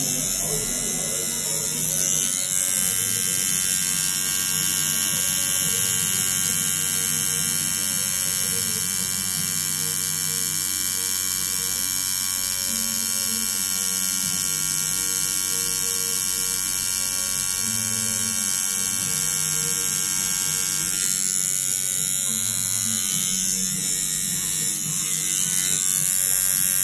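Tattoo machine running with an 18 round liner needle, a steady electric buzz as it lines the outline of a tattoo into skin.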